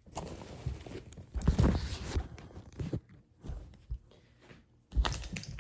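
Irregular rustling and handling sounds with a few knocks, loudest about a second and a half in and again near the end.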